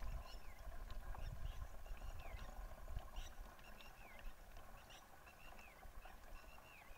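Birds chirping, one repeating a short falling whistle about once a second. Under them is faint low glugging from a jerrycan of water being poured into a battery backpack sprayer's tank, which fades after about three seconds.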